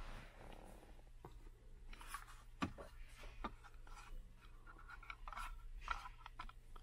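Faint handling noise of a plastic Volkswagen USB hub module and its wiring connectors being lined up by hand: light rubbing and scattered small plastic clicks, with one sharper click about two and a half seconds in.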